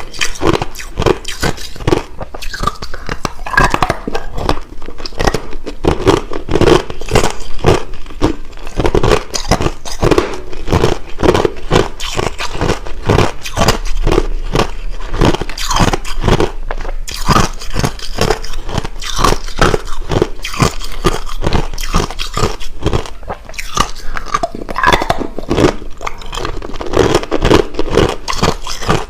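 Hard, clear crushed ice being bitten and chewed close to the microphone: a rapid, unbroken run of loud crunches, several a second.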